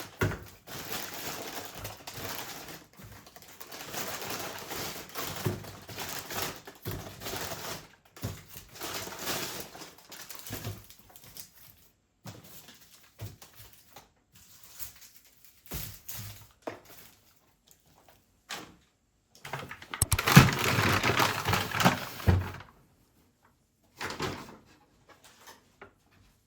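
Household handling sounds: stretches of rustling and scraping with scattered soft knocks, and the loudest burst of rustling about twenty seconds in.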